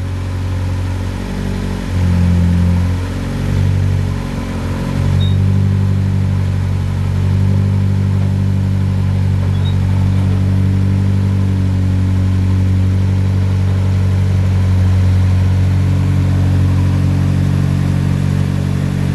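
Nissan 240SX's swapped-in RB25 turbocharged straight-six running at low revs while the car is driven slowly down trailer ramps. There are a few short changes in engine note in the first five seconds, then it settles to a steady idle.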